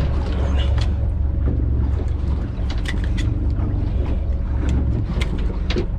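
Boat engine running with a steady low hum, easing off slightly near the end, with scattered light knocks on the deck.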